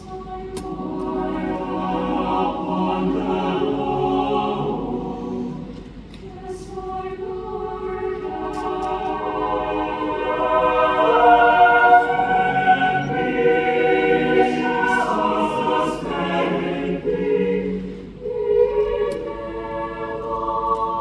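A choir singing in many-voiced harmony, with long held chords. Phrases break briefly about six seconds in and again near the end, and the sound swells loudest around the middle.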